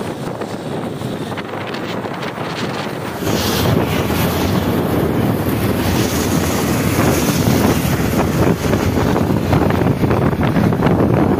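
Wind buffeting the microphone of a camera moving along a road, over the rush of travel. It gets louder and heavier about three seconds in.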